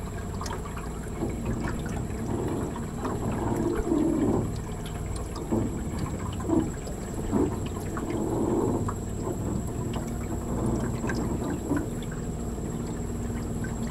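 Water splashing and trickling around a small boat gliding through still swamp water, in irregular swells a few times over the stretch.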